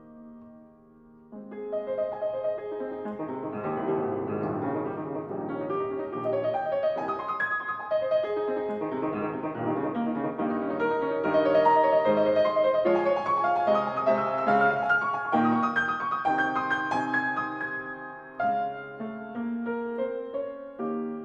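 Soothing solo piano music: a flowing melody over held chords, building in the middle and softening near the end.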